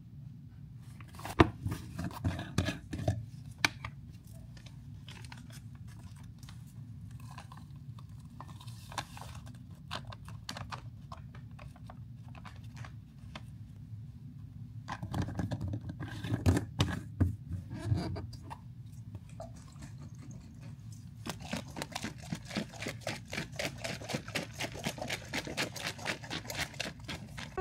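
A plastic protein-powder packet crinkling and being torn, with clicks of a glass mason jar, in two short bouts. For the last several seconds a fast, even rattling follows as the jar is shaken to mix the protein shake.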